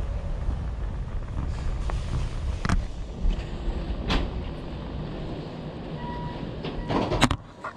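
Steady low road rumble of a moving vehicle, with a few sharp knocks and clicks, and a louder rattling clatter near the end.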